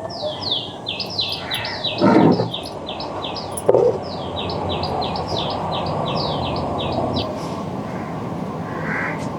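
A bird calling a rapid series of high, downward-slurred notes, about three or four a second, that stops about seven seconds in. Under it runs a steady low hiss, and a short thump sounds about two seconds in.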